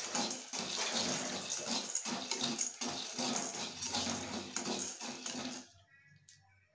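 Metal spatula stirring and scraping whole chickpeas through salt in a metal kadai to dry-roast them: a gritty, rattling hiss full of small clicks. It stops abruptly near the end.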